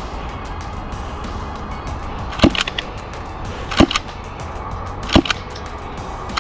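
Airsoft gunfire: three sharp cracks about a second and a half apart, each trailed by a smaller click, over steady background music.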